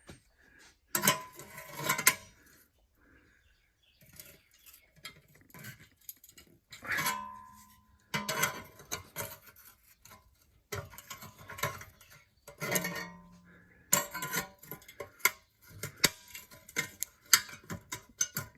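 Hand tools and small metal parts clinking and clattering in irregular bunches of sharp knocks, a few of them leaving a short metallic ring.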